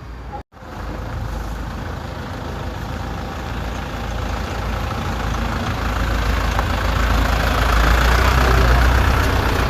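A motor vehicle's engine running, with a rushing noise and low rumble that grow steadily louder toward the end.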